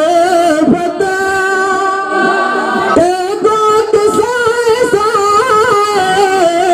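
A man singing a manqabat, an Urdu devotional song in praise of Imam Hussain, into a microphone. He draws out long held notes with ornamented turns in the melody.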